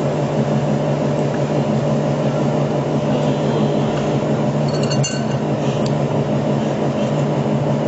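A steady low machine hum, with a steel spoon scooping minced meat from a glass bowl and clinking against the glass once about five seconds in.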